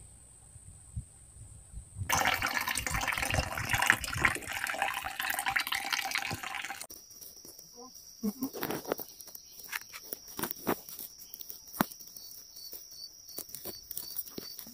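A loud rushing noise cuts in about two seconds in and cuts off abruptly about five seconds later. After that, insects keep up a steady high shrill with a regular pulsing chirp, and there are light scattered clicks and rustles.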